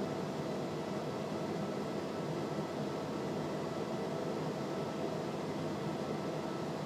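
Steady drone of a Cessna P210R's engine and propeller in cruise flight, an even noise with faint steady tones that does not change.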